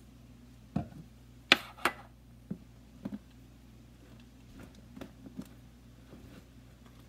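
Metal spoon clicking and tapping against the bowl while stirring thick, sticky slime, about eight sharp knocks at uneven intervals, the loudest about one and a half seconds in.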